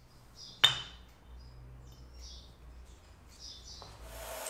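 A single sharp metallic clink with a short ring, about two-thirds of a second in, from the small turned copper and aluminium parts of a flint-knapping tool kit being handled on the bench. After it come a few faint high chirps over a low hum.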